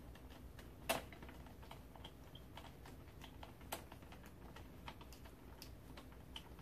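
Faint, irregular clicks and ticks of a hand screwdriver driving a screw into the rocker's side rail, with a sharper click about a second in and another just before four seconds.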